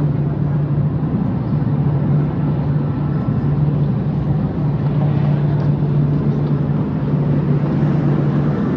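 Cabin noise of the Jakarta–Bandung high-speed train running: a steady low hum under an even rushing noise.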